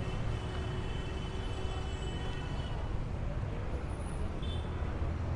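Steady road traffic rumble of passing cars and buses.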